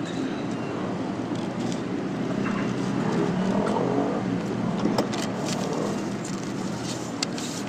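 Steady low rumble of a motor vehicle running, its pitch bending a little about three to four seconds in, with a few light snips of scissors cutting card.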